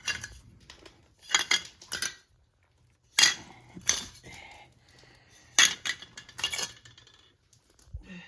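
Metal parts of a gas furnace's burner section clinking and clattering as they are handled and fitted back together, in several short clusters of sharp clicks a second or so apart.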